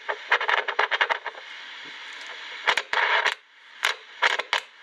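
Realistic Navaho TRC-457 CB base station's speaker giving a steady hiss of receiver noise with the volume turned up, broken by three short spells of louder crackling. No signal comes through: the set is on a dummy load and only its own noise is heard.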